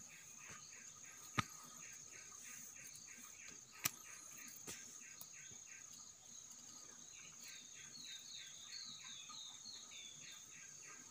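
Faint forest insect sound: a steady high-pitched buzz with a rhythmic chirping of about four pulses a second. A bird's quick chirps join in the second half, and three sharp clicks stand out in the first half.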